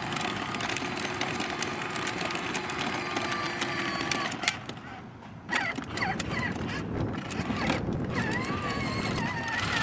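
Battery-powered toddler ride-on quad (Kawasaki KFX toy) driving along concrete: a steady electric motor and gearbox whine over the rattle of hard plastic wheels. There is a brief lull about five seconds in.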